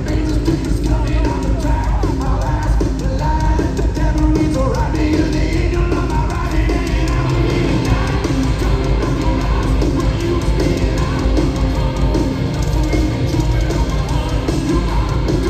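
Rock band playing live at full volume: distorted electric guitars, bass and a drum kit driving a hard rock song, recorded from the audience.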